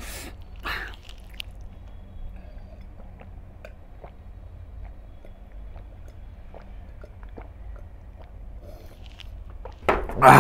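A man drinking from a large glass in long gulps, with faint swallowing sounds and a couple of clicks as the glass is lifted at the start. A loud burp begins just before the end.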